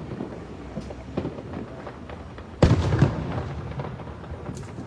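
Aerial fireworks bursting at a distance: a few light pops, then two heavy booms about two and a half seconds in, less than half a second apart, with a rumble trailing after them.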